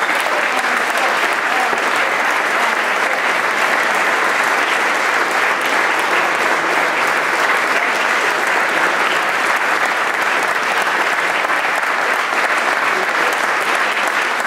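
A large audience applauding steadily, dense sustained clapping with no let-up.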